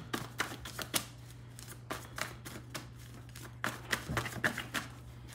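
Tarot deck being shuffled by hand: a string of irregular soft card clicks and slaps.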